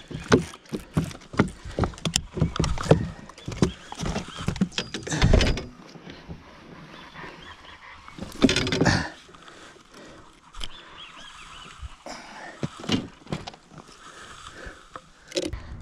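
A rapid run of knocks and thuds on a bass boat as a freshly landed largemouth bass thrashes and is handled. The knocks are dense for the first few seconds, with a couple of heavier thuds, then grow sparse.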